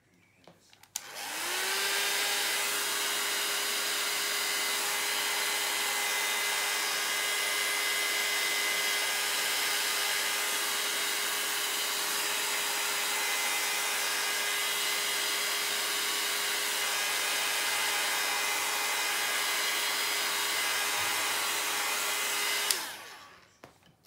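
Handheld hair dryer switched on about a second in, its motor whine rising quickly to a steady pitch, then blowing steadily for about twenty seconds before it is switched off and winds down near the end.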